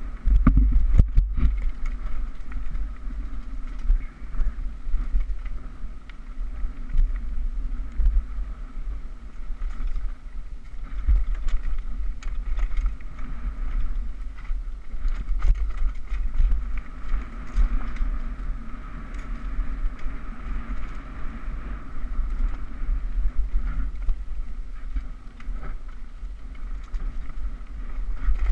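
Downhill mountain bike running fast down a dirt and rock trail: wind buffeting the microphone, tyre noise on the dirt, and frequent knocks and rattles from the bike over rough ground.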